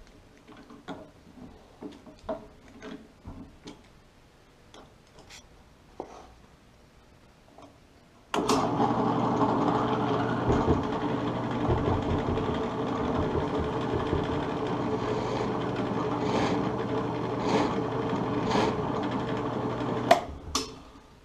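Small clicks and taps of a bit being fitted into a drill press chuck, then the benchtop drill press motor switches on about eight seconds in and runs steadily for about twelve seconds, with a countersink bit cutting the screw holes in a wooden runner, before it switches off.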